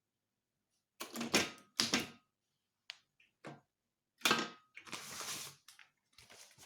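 Typewriter keys struck one at a time, several separate clacks with short, uneven pauses between them as a word is typed. About five seconds in there is a longer scraping sound.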